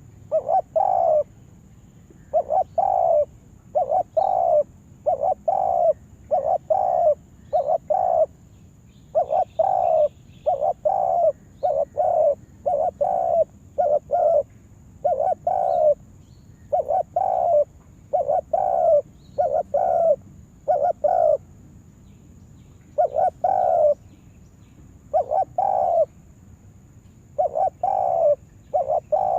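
Spotted dove (tekukur) cooing: short coo notes repeated in quick groups, with a couple of brief pauses near the end.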